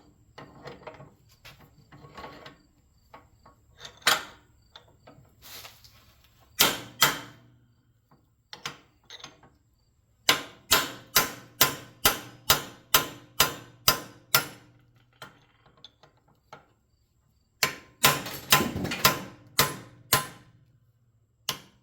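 Hammer blows on a steel punch, driving a tight press-fit steel insert out of a copper piece from a motor starter. A few single strikes come first, then two runs of quick blows at roughly two a second, each with a short metallic ring.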